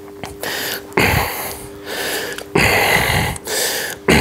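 A man's forceful breathing under strain, three hard breaths about a second and a half apart, typical of effort through a heavy lift.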